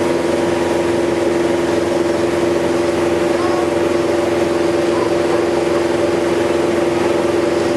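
Sightseeing boat's engine running at a steady cruising speed, a constant drone with a low hum heard from on board.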